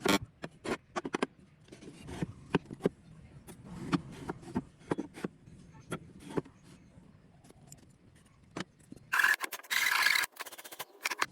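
Wooden pieces handled and knocked together, with scattered sharp clicks and taps. About nine seconds in comes a loud scraping rasp of wood being worked, lasting about a second.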